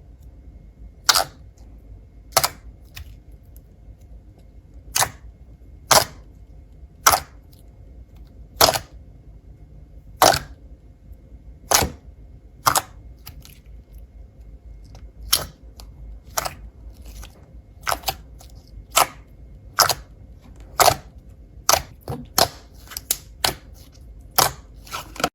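Slime being pressed and poked, giving sharp crisp pops, roughly one a second at first and coming quicker near the end.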